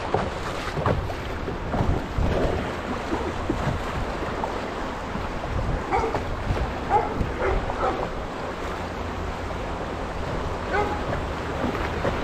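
Fast river rapids rushing and splashing around a canoe, with paddle strokes and wind buffeting the microphone.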